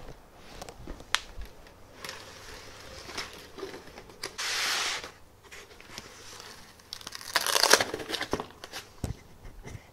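Packaging being handled and pulled from a cardboard box, rustling and crinkling with small knocks; a rushing, sliding sound about four seconds in, and the loudest crinkling burst a little before eight seconds.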